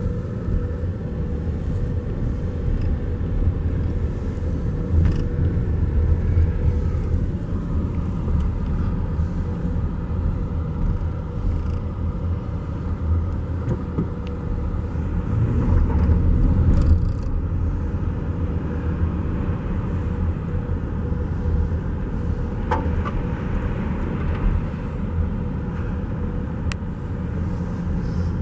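A car or truck moving slowly, its engine and tyres making a steady low rumble over a rough road, with a few light knocks and clicks.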